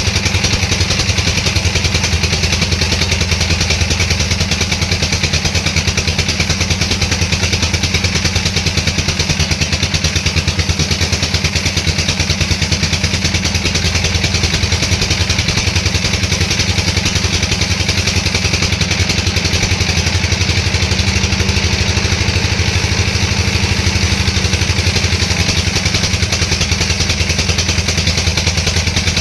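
Sawmill machinery running steadily with an engine-like drone and fast even pulsing, unchanged throughout.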